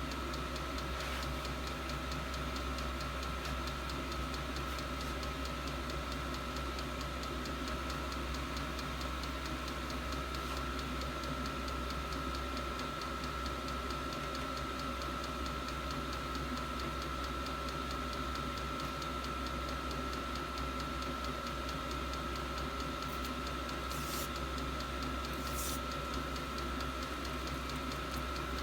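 8 kW 12 V all-in-one diesel air heater running steadily: a constant hum with a thin steady whine from its blower fan, and two faint clicks near the end.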